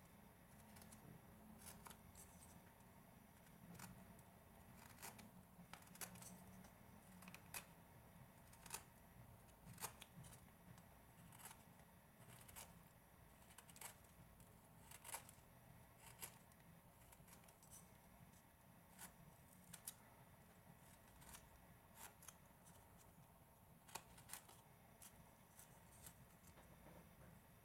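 Faint, crisp clicks and snips of a small hand carving gouge slicing chips from a wooden head, at an irregular pace of about one cut a second.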